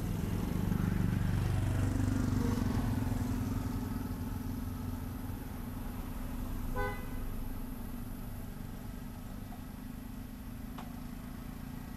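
A motor vehicle's engine passing close by, swelling over the first few seconds and then fading, with one short horn toot about seven seconds in.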